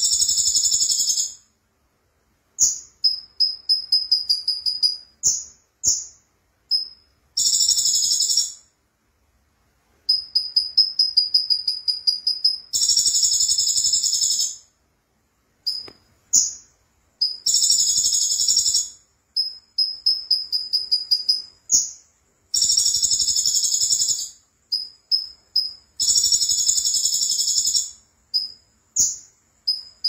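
Sunbird singing in a high pitch: rapid runs of thin chips and short trills, broken every few seconds by a harsh, buzzy phrase about a second and a half long.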